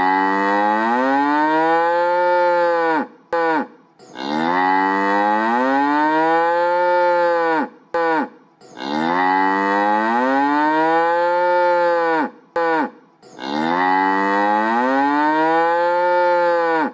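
A cow mooing: four long moos of about three seconds each, every one rising in pitch and then dropping at the end, with short pauses between.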